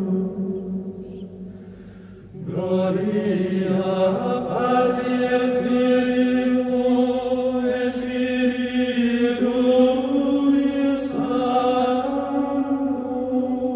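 Slow unaccompanied chanted singing: long held notes that step slowly in pitch, with a pause for breath about two seconds in and a short break near eleven seconds.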